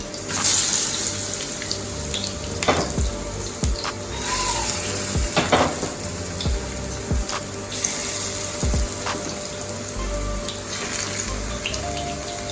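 Food frying in hot oil in a pan: a steady sizzle that swells in hissing surges every few seconds, with a few light clicks of utensils against the pan.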